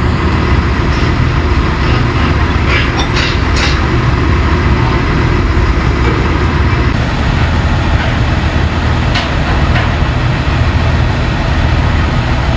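Large diesel engine of heavy machinery running steadily at idle, a deep constant hum, with a few brief high-pitched squeaks around three seconds in and again near ten seconds.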